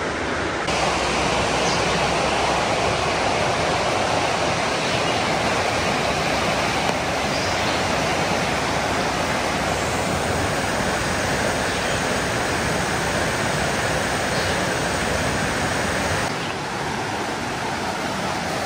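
River water rushing, a steady even rush that drops a little in level about sixteen seconds in.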